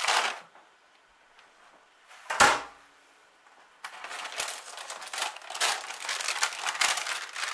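Baking paper crinkling as it is peeled away from the sides of a freshly baked cake, from about four seconds in. Before it, one loud clunk about two and a half seconds in.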